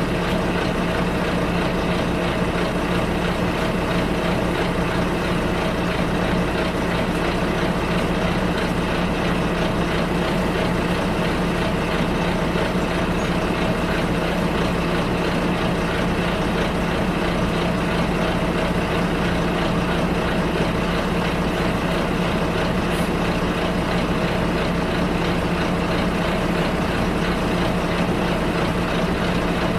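Bus engine and running noise heard from inside the passenger cabin: a steady, unchanging drone with a constant low hum.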